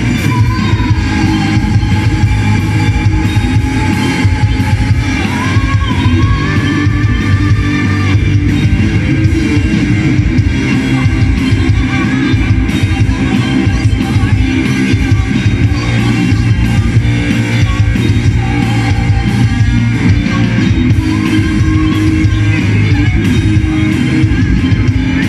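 Live rock band: a woman singing into a microphone over electric guitars and a drum kit, with long held sung notes in the first several seconds.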